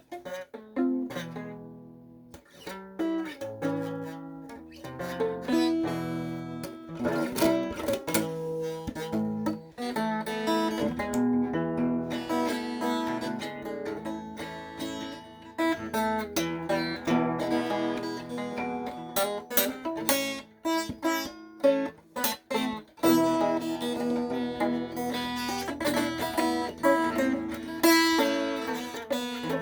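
Acoustic guitar music: notes picked and strummed in a steady, unbroken run.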